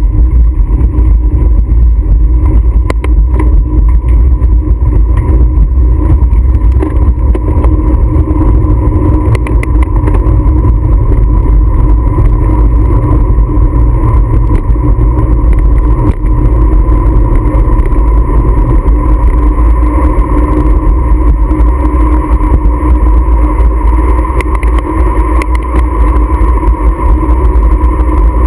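Motorcycle engine running steadily at cruising speed, heavily buffeted by wind on the microphone of the riding camera.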